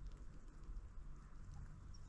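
Faint, irregular light taps and scratches of small birds pecking and hopping on a feeder, over a low steady rumble.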